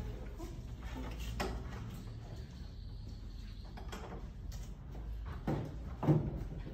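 Old wooden door being rattled and pushed open, with a few separate knocks and a louder thump near the end.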